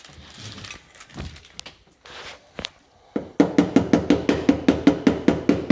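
Soft handling noises and a few clicks, then, from about three seconds in, a fast, steady run of hammer strikes, about four to five a second, each with a short ring, while working on a car door's outside handle parts.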